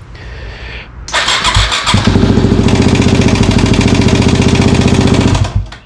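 2008 Yamaha WR250X's single-cylinder four-stroke engine starting on the electric starter and running loudly with a rapid, even knocking rattle, then shutting off suddenly just before the end. This is the knock on starting that the customer reported; it sounds not great at all.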